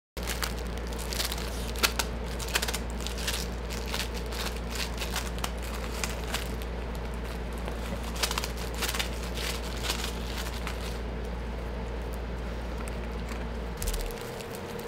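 Plastic wrapper crinkling and crackling as a dog chews and paws at a plastic-wrapped fortune cookie, in irregular sharp crinkles that thin out over the last few seconds.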